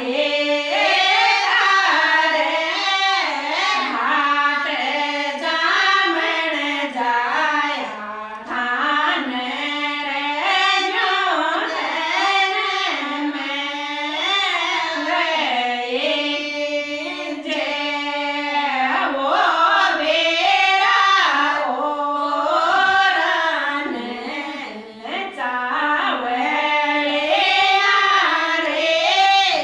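Women's voices singing a continuous folk melody in phrases of rising and falling notes.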